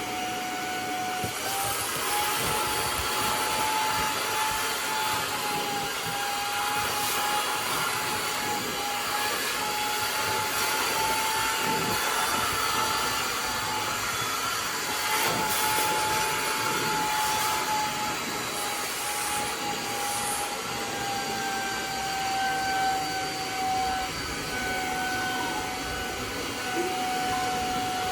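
Cordless Hoover spot cleaner running on a mattress: a steady motor whine over the rush of suction, its pitch wavering slightly.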